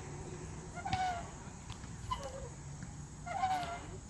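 Playground airplane swing squeaking in rhythm as it rocks: a short squeal falling in pitch on each swing, with a louder one every other pass, and light clicks from the swing's fittings.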